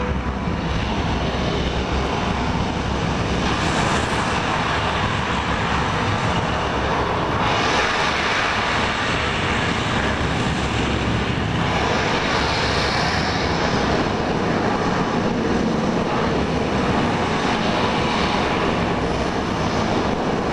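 Launch noise of a Saturn V rocket's first-stage engines at liftoff, played loud over an exhibit's speaker system: a continuous deep rumble that swells and eases now and then.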